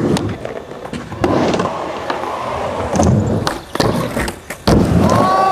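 Skateboard wheels rolling over concrete, with several sharp clacks and knocks of the board during tricks. Close to the end a loud, steady tone starts suddenly.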